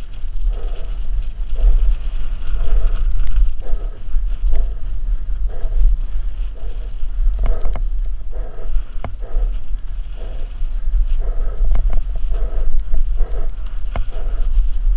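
Wind buffeting the microphone of a helmet camera on a fast downhill mountain bike descent, with tyre rumble on dirt and the bike rattling, with several sharp knocks over bumps.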